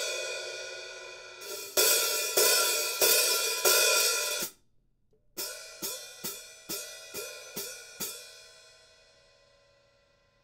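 14-inch Zildjian A Custom Mastersound hi-hats struck open with a stick, five loud strikes with a long shimmering wash, cut off abruptly about four and a half seconds in. After a short silence comes a run of lighter strikes about two a second, left to ring out.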